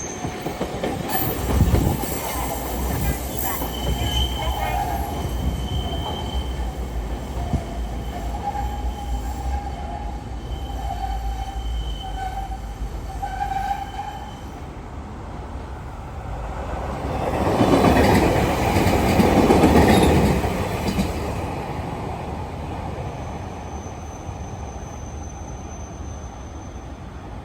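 Railway sounds at a level crossing: broken high steady tones through the first half, then a train running past, loudest a little after the middle and fading away. The passing train is a JR Kyushu YC1 series three-car set.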